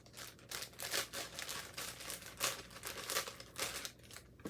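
Plastic or paper packaging being crinkled and torn open by hand, in irregular rustling crackles.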